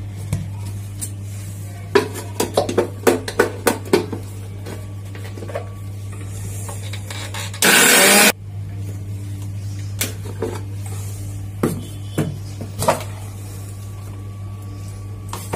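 Steel mixer-grinder jar and lid clinking and knocking as they are handled and seated on the base. Then the Prestige mixer grinder runs once, a loud burst of about half a second, grinding onion, ginger and garlic into wet masala paste. More clinks follow as the jar is taken off, over a steady low hum.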